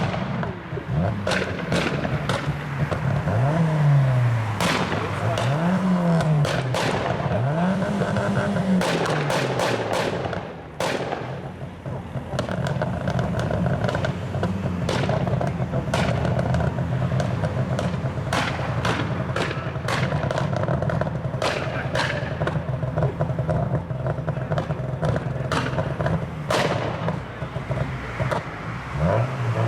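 A tuned car engine blipped through quick revs, its pitch rising and falling three times, then holding a steadier note, while the exhaust fires a string of sharp pops and bangs: unburnt fuel igniting in the exhaust, as from an anti-lag or pops-and-bangs tune.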